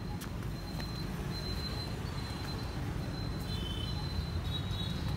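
Steady low outdoor rumble with a thin, high-pitched whine that comes and goes.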